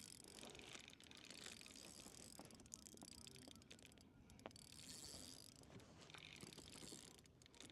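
Faint mechanical clicking and whirring of a fishing reel being wound in, with scattered light ticks.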